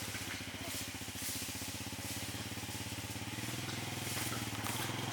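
A small engine running steadily with an even, rapid pulse and no change in speed.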